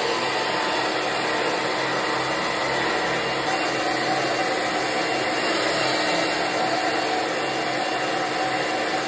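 Handheld hair dryer running steadily on hair, a loud, even whir of blown air and motor.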